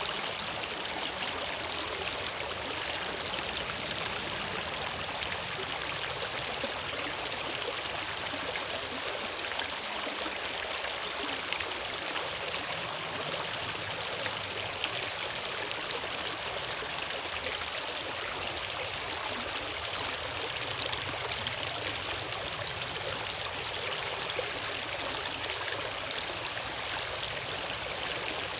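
Running water rushing steadily.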